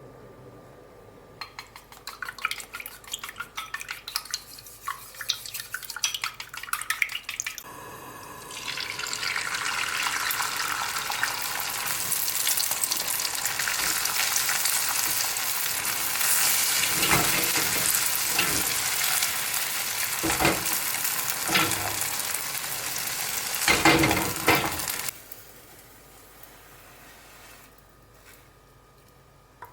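Food frying in a hot pan: a loud steady sizzle that starts suddenly about eight seconds in and cuts off about 25 seconds in, with a few utensil knocks against the pan near the end. Before it, a run of quick light clicks and taps, as of stirring in a bowl.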